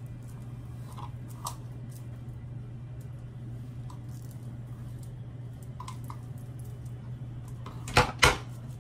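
Scattered small clicks and clinks of a hair-styling tool being handled while curling hair, with two sharp clacks close together near the end, over a steady low hum.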